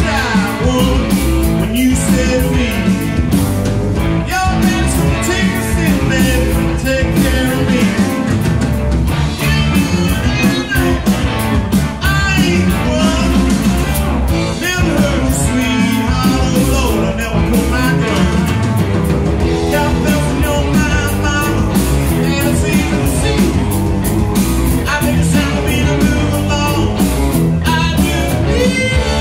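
Live rock band playing: a man sings lead over electric guitars, bass guitar and drums.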